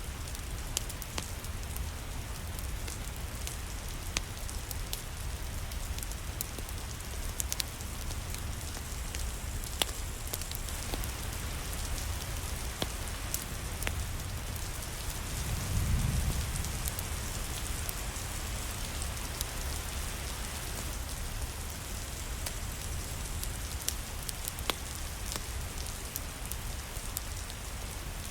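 Steady rain falling, with scattered sharp clicks of drops or crackles through it and a brief low rumbling swell about halfway through.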